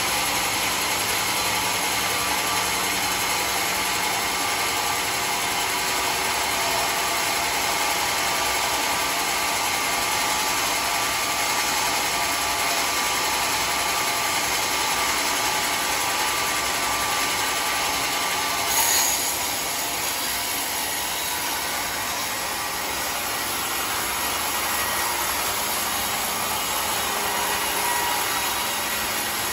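Band sawmill running steadily as its blade saws lengthwise through a large red-timber plank, a continuous mechanical whir with a faint whine. There is a brief sharp knock about two-thirds of the way through, after which the whine drops out.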